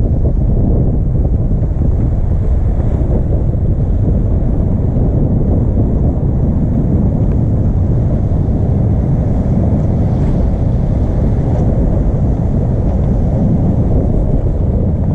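Steady wind buffeting the microphone, with the sea rushing past the hull of the Volvo 65 racing yacht under way.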